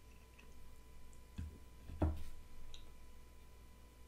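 Quiet, with a few faint clicks and two soft knocks, about a second and a half and two seconds in.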